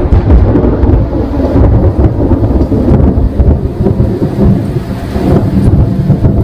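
A long, low rumble of thunder over falling rain.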